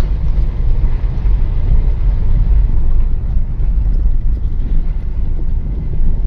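Car interior noise while driving slowly over a rough, broken lane: a steady low rumble of engine and tyres, heard from inside the cabin.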